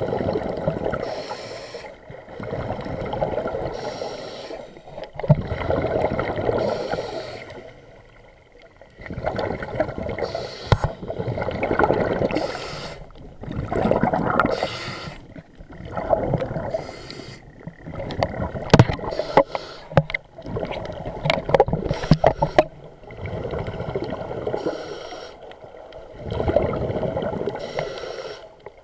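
Scuba diver breathing through a regulator, heard through the action camera's waterproof housing: a short hissing inhale followed by a longer bubbling exhale, repeated every three seconds or so. A few sharp clicks come about two thirds of the way through.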